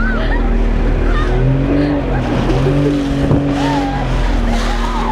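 Motorboat engine running, its pitch stepping up and down a few times as the throttle changes, over wind and water noise. A few short calls from people in the water.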